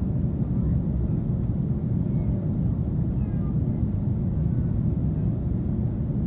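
Steady low rumble of airliner cabin noise aboard an Airbus A330-300, with a few faint short high-pitched squeaks over it.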